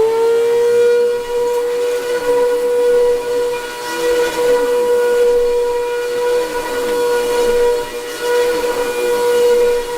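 Bissell PowerLifter Multi-Cyclone upright vacuum cleaner running at full speed: a loud, steady high whine over a rushing hiss, like a jet, which the owner says is normal for this vacuum.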